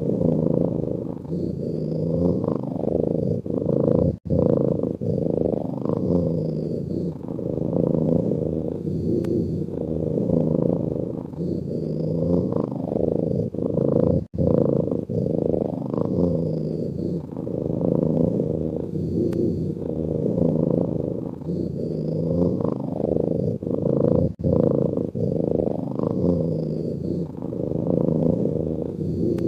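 A sleeping cat purring continuously, the sound swelling and easing in a slow breathing rhythm about every two seconds. It breaks off for an instant three times, about ten seconds apart.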